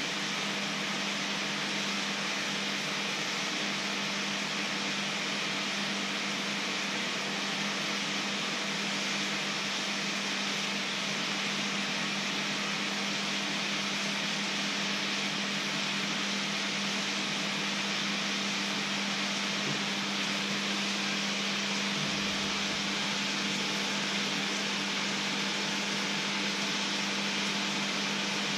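Liquid boiling hard in a black steel pan on an electric hob: a steady bubbling hiss that holds level throughout, over a constant low hum.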